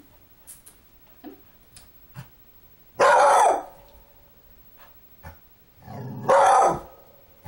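A dog barking twice, about three seconds apart, each a short loud bark; the dog is afraid of a doll and barks out of fear of it.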